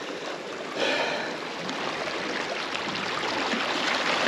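Small sea waves washing over and trickling among shoreline rocks, a steady rush of moving water that swells slightly about a second in.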